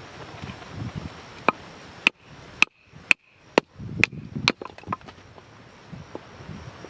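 Sharp chopping strikes, roughly two a second, starting about a second and a half in. Several of them carry a short metallic ring, and a few lighter knocks follow.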